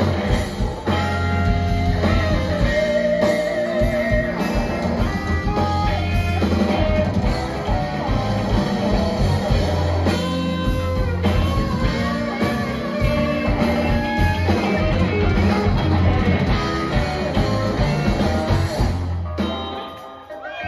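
Live rock band playing: electric guitars, bass guitar and a drum kit, with a melodic lead line over a strong bass. The music drops away shortly before the end.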